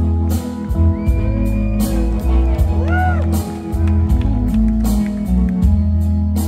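Live rock band playing an instrumental passage between sung lines: electric and acoustic guitars, bass and drums keeping a steady beat under held chords.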